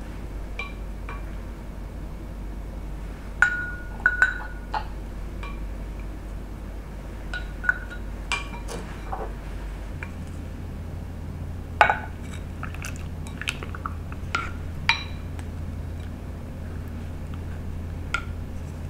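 Wooden chopsticks, a wooden spatula and the rim of a ceramic bowl tapping and clinking against a glass jar while wet fruit slices are packed into it. The clinks come singly and in small clusters, some ringing briefly, the loudest about 3.5, 4 and 12 seconds in.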